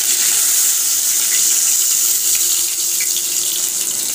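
Fish frying in hot oil in a kadai, a steady high hiss, with a few light clicks of a spatula.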